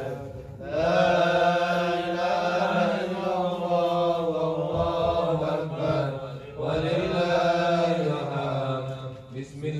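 A man reciting the Qur'an in Arabic in the melodic tilawah style, amplified through a microphone: long drawn-out phrases, with short breaths about half a second in and again about six and a half seconds in.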